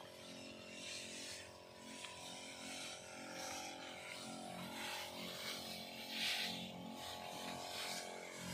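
Electric backpack sprayer's pump motor humming steadily while spraying a crop, with intermittent hissing from the spray nozzle and brushing leaves; the loudest hiss comes about six seconds in.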